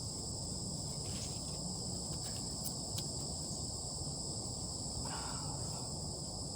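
Steady, high-pitched insect chorus in two even tones, over a low background rumble, with a couple of faint clicks about three seconds in.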